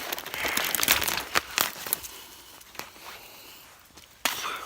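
Dry sticks and brush snapping and crackling: a quick run of sharp cracks over the first two seconds, then a few scattered single snaps.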